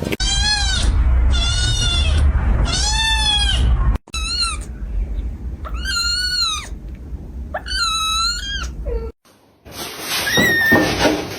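Kittens mewing: about six short, high-pitched mews, each rising and then falling in pitch.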